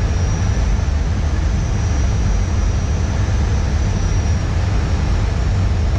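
Steady flight-deck noise of an Airbus airliner on final approach: airflow and engine noise, heaviest in the low rumble. A faint high whine fades out about four seconds in.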